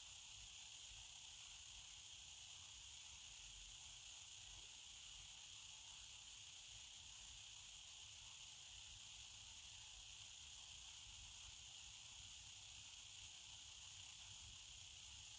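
Near silence: a steady, faint hiss on the space-to-ground radio feed between transmissions.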